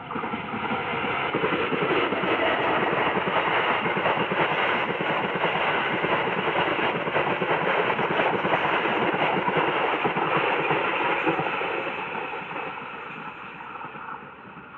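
PT INKA's service train passing close by, swelling up quickly, staying loud for about ten seconds, then fading away near the end.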